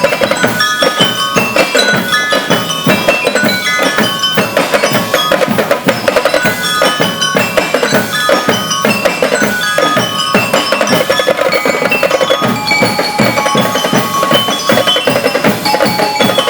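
Drum and lyre corps playing a melody: bell lyres ring out quick runs of short, bright notes over a steady beat of marching drums.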